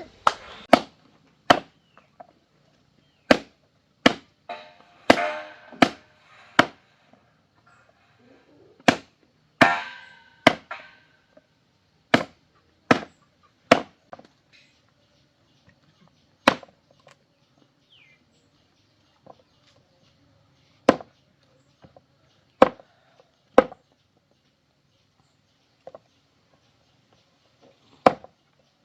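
Hammer blows struck one at a time at an uneven pace, roughly one every second or two, a few of them ringing briefly.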